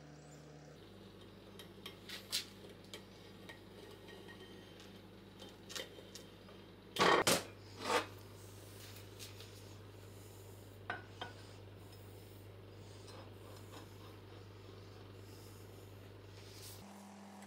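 Metal parts being handled on a workbench: scattered light clicks and clinks, with a louder clatter about seven seconds in, over a low steady hum.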